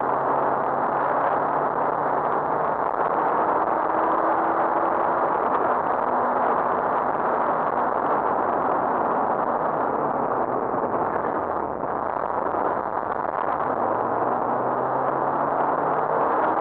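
Rally car at speed, heard from inside the cabin: a loud, steady rush of engine, tyre and wind noise with the engine note underneath. The sound dips briefly about two-thirds of the way through, then the engine pitch climbs again.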